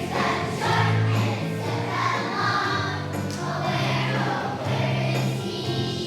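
A choir of young children singing a song over a musical accompaniment with a steady bass line.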